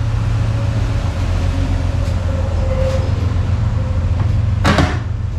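Chevrolet Silverado pickup engine running as the truck rolls slowly into an enclosed car wash bay: a steady low rumble, with one short sharp noise about five seconds in.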